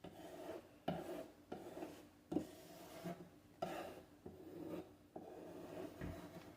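Putty knife spreading and scraping spackle over a wooden door frame: about ten short rubbing strokes, a little more than one a second.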